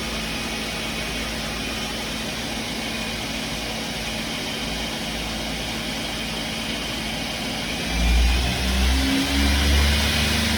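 Daewoo Puma 200M CNC lathe running with a steady machine hum; about eight seconds in a much louder, uneven low rumble starts.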